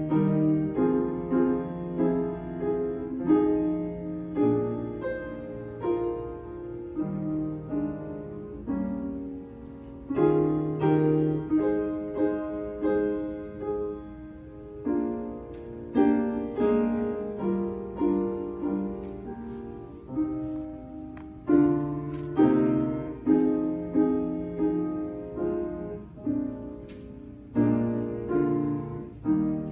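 A piano playing a slow piece in chords, each chord struck and left to fade before the next.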